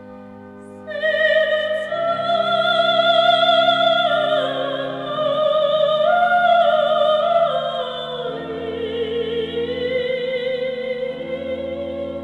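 A female soprano singing a slow, lamenting Armenian song in a classical style, her voice with a wide vibrato entering about a second in over sustained low accompaniment chords.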